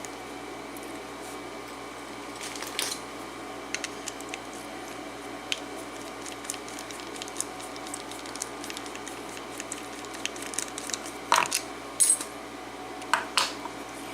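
Small metal clicks and clinks as a padlock is handled and taken apart to get at its pins: scattered light ticks, with a few louder clinks near the end.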